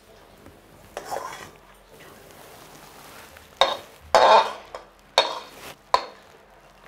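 A spatula scraping and knocking inside a kadai as a sticky jaggery, peanut and sesame brittle mixture is emptied onto a plate. There is one scrape about a second in, then four louder scrapes and knocks in the second half, the loudest a little past the middle.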